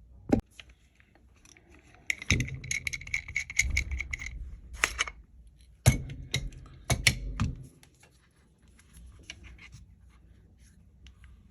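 Small metal repair tools and phone parts handled on a workbench while an iPhone is taken apart: sharp clicks, taps and scraping, with a thin high tone under the scraping for about two seconds. It grows faint after about eight seconds, leaving only light ticks.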